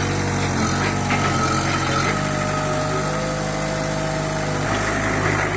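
Old Airman mini excavator's diesel engine running steadily, its pitch shifting about two seconds in and again near the end as the machine works.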